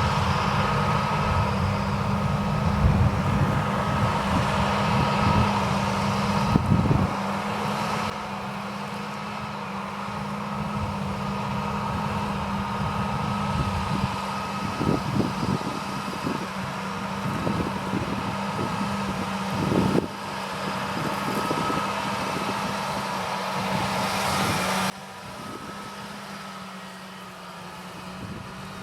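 John Deere 8370R tractor and Krone Big Pack 1290 HDP II big square baler at work: a steady machine drone with a constant hum and irregular low thumps. The loudness drops sharply about a quarter of the way in and again near the end.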